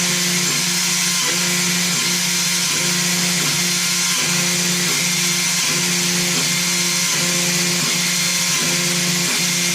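Small CNC mill's spindle running while machining a wooden keycap: a steady high hiss over a pitched hum that dips briefly about every three-quarters of a second.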